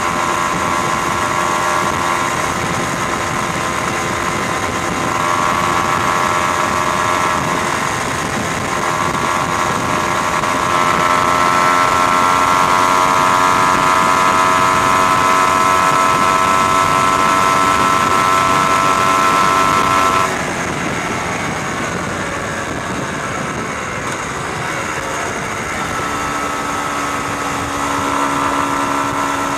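Motorcycle engine running at road speed under a rush of wind and road noise, heard from on board. The engine note climbs a little about a third of the way in, holds steady, then drops suddenly and quietens about two-thirds of the way through, picking up again near the end.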